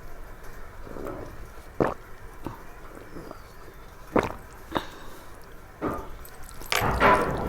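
Close-up eating sounds: wet smacks and squishes of a mouthful of rice and curry being chewed, a few separate sharp smacks, then a denser run of them near the end.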